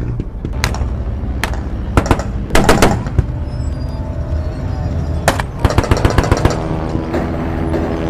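Battle ambience of gunfire: single rifle-like shots and quick machine-gun bursts, twice in rapid runs, over a continuous low rumble of distant fighting.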